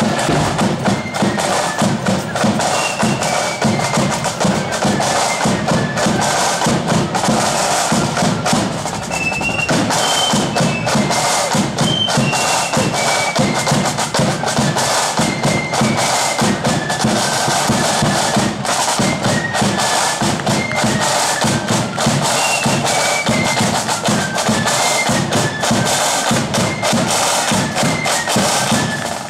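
Marching flute band playing in the 'blood and thunder' style: flutes carry a melody of short stepping notes over loud, rapid snare drumming.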